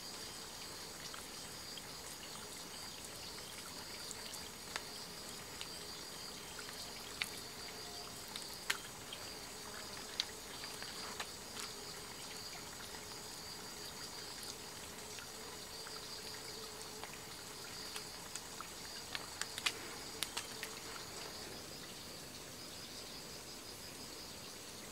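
Steady high chirring of forest insects, with a lower continuous hum underneath. Scattered small clicks and taps come through it in the first half and in a cluster about three-quarters of the way in.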